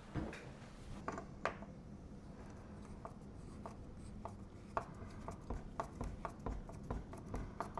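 Small metal clicks and scrapes of a hand screwdriver and door-knob hardware as an old dummy door knob is unscrewed and taken off a door. The clicks are scattered at first and come in a quicker run in the second half.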